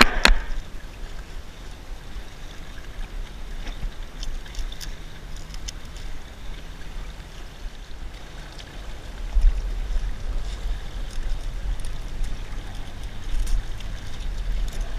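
Wind rumbling on the camera microphone over sea water washing among breakwater rocks, with two sharp knocks at the very start and faint scattered ticks after.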